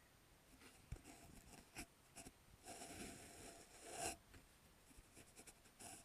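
Faint scratchy rubbing as a Norwegian Forest Cat's long fur brushes against the stick and the camera mounted on it. There is a knock about a second in, and a longer stretch of rubbing in the middle that is loudest near its end.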